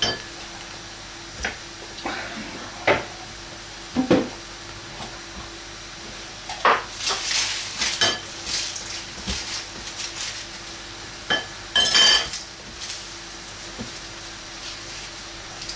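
Food preparation on a wooden chopping board: onions being torn apart and peeled, with scattered knocks and a stretch of crackly rustling of papery onion skin. About twelve seconds in, a loud clatter of metal cutlery or crockery rings briefly.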